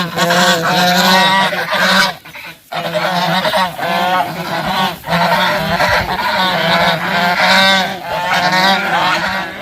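Domestic goose honking loudly, call after call in quick succession, with a brief pause about two seconds in.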